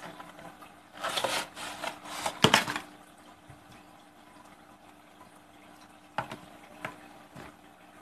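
Aquarium heater packaging being handled: a couple of seconds of loud rustling and rattling as the glass heater is pulled out of its box, loudest about two and a half seconds in, followed by three short knocks.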